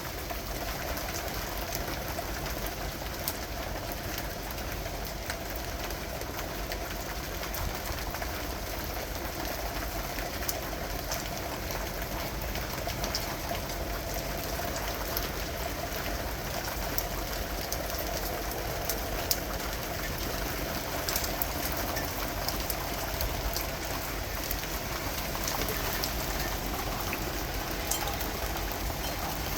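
Steady rain falling, with many individual drops ticking sharply here and there.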